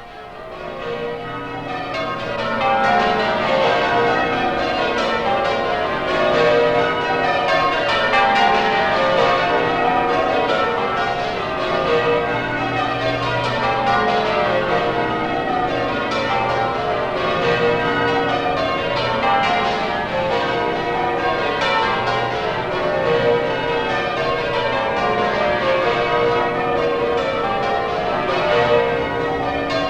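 Church bells pealing: a ring of bells struck in quick repeated downward runs, as in change ringing. The peal fades in over the first two seconds or so, then rings on steadily.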